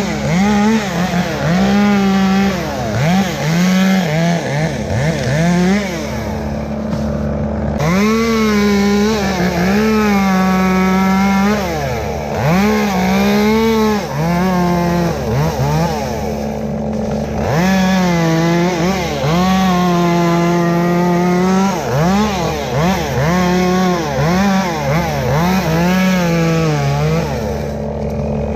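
Chainsaw revving and cutting, its pitch rising, holding at full throttle and dipping again over and over, with longer full-speed stretches about a third of the way in and again past the middle. A steady engine drone runs underneath.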